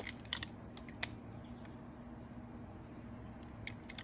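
A few light, sharp clicks and taps from small lock parts and hand tools being handled: a cluster in the first second, then two more near the end, over a faint steady hum.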